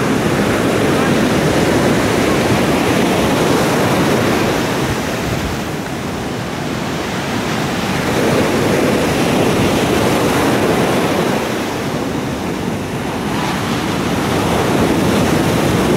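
Surf washing on the beach, mixed with wind buffeting the microphone: a loud, steady rushing noise that eases off slightly twice before swelling again.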